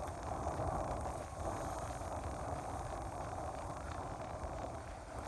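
Steady wind buffeting the microphone, with a hiss of open water.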